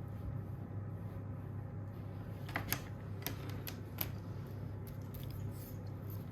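Light clicks and taps from handling a soldering iron and wires at a bench, about five in quick succession a little past halfway, over a steady low hum.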